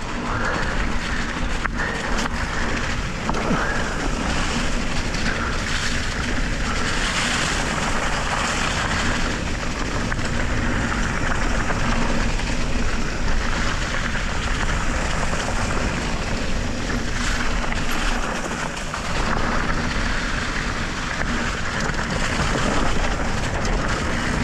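Electric mountain bike riding fast downhill on a leaf-covered dirt trail: a steady rush of wind noise on the microphone over the rolling noise of the tyres.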